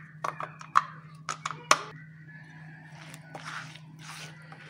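A hand squishing and mixing soft, creamy batter and yogurt in a glazed clay bowl: a few sharp wet smacks and clicks in the first two seconds, then squelching swishes.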